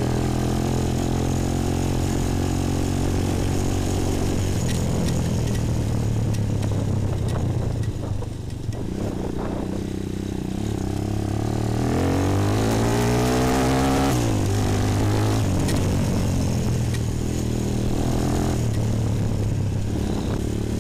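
Bashan 250 quad's engine running under way on a dirt track. It eases off about eight seconds in, revs up with a rising pitch around twelve seconds in, drops back a couple of seconds later and then runs steadily again.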